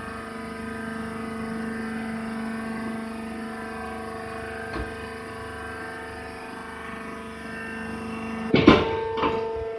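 Hydraulic baler running: its motor and hydraulic pump give a steady hum. Near the end there is a loud metallic clank, then a smaller knock.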